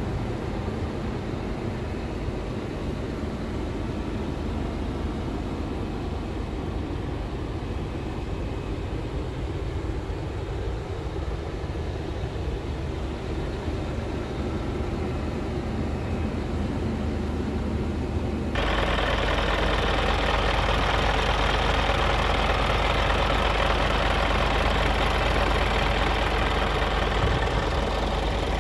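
Scania truck's diesel engine idling steadily, muffled and dull as heard from inside the cab. About two-thirds of the way through it turns suddenly louder and brighter, heard in the open behind the cab.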